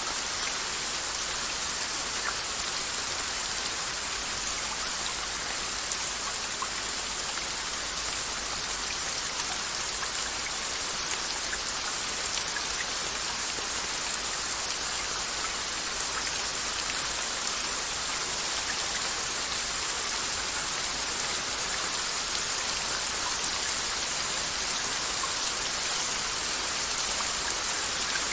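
Steady rain falling, an even constant hiss with a few scattered drop ticks.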